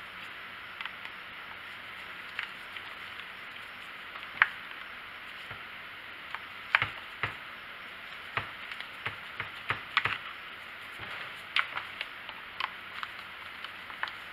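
Irregular plastic clicks and knocks as the air filter is handled and pressed into place on a Stihl 290 chainsaw, the loudest about four and a half seconds in, over a steady background hiss.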